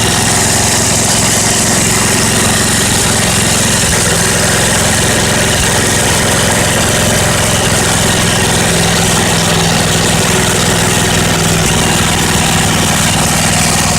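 Small Tecumseh engine on an old riding lawn mower running steadily after a cold start, following a couple of months unused.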